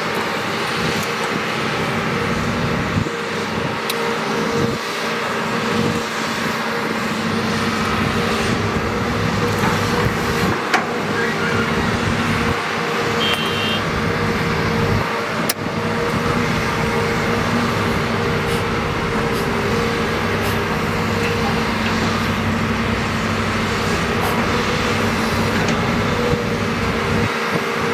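Matador ME315 excavator's diesel engine running steadily under load as it digs soil and swings to load a dump truck, with a few sharp knocks from the bucket and its linkage.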